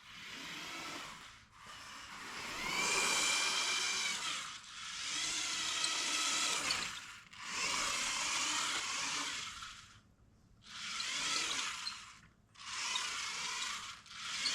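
Electric drive motors and plastic gears of a remote-control Lego Porsche whirring as it drives, in about six bursts of a few seconds each with short pauses between them.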